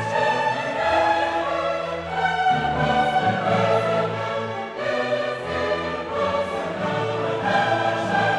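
Background choral music with orchestra: a choir singing long held notes over strings.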